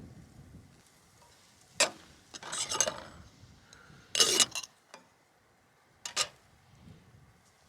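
Metal cookware and utensils being handled: a few short clinks and scrapes spread over several seconds.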